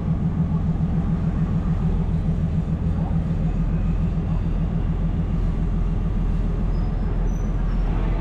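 Diesel train engine running with a steady low drone.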